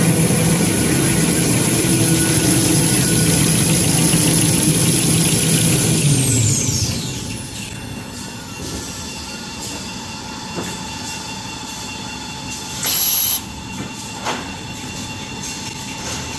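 Tissue-paper rewinding and converting line running, with a steady mechanical hum and a high whine. About six seconds in the whine glides down in pitch and the running becomes quieter. Near the end there is a brief louder burst and a single click.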